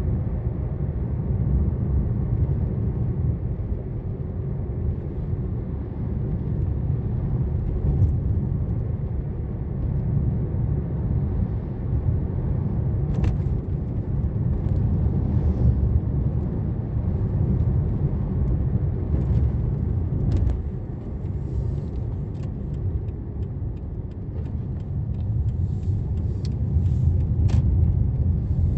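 Road noise inside a moving car's cabin: a steady low rumble of tyres and engine. A few faint clicks come midway, and a scattering of short ticks near the end.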